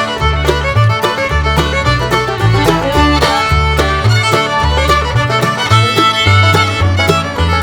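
Instrumental background music led by a fiddle, over a bass line and a quick, steady beat.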